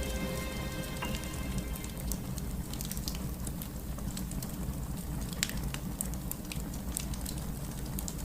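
Steady rain with scattered sharp ticks of individual drops over a low rumble. The last held notes of soft ambient music fade out in the first second.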